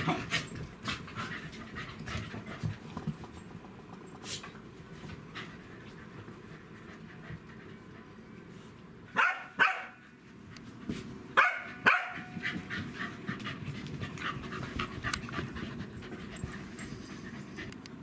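Pembroke Welsh corgis play-fighting: panting and scuffling, with two loud clusters of short dog vocalisations about halfway through.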